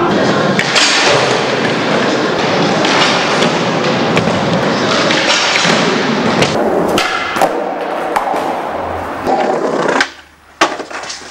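Skateboard wheels rolling on a concrete floor, with several sharp clacks and thuds of the board hitting the ground as a skater bails; the rolling stops abruptly shortly before the end.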